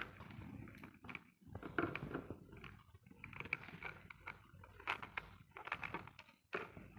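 Irregular clicks, taps and rustling of small hardware parts being handled and fitted by hand.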